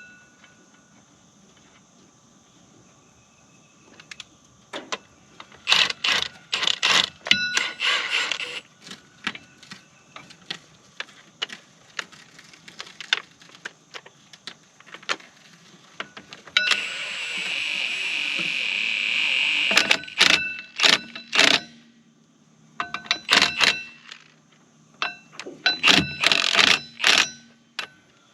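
Metal on metal: bursts of sharp clanks and knocks that ring briefly, with a steady hiss lasting about three seconds past the middle.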